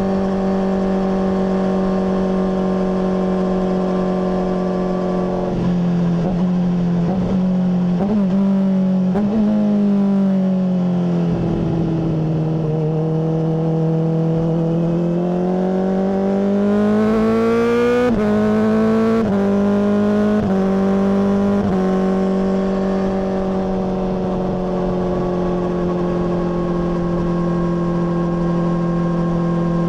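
Honda CBR600RR inline-four with a MIVV full exhaust, running at a steady engine speed. Midway the note changes in quick steps and sags, then climbs smoothly to a peak and steps through several gear changes before settling back to a steady drone.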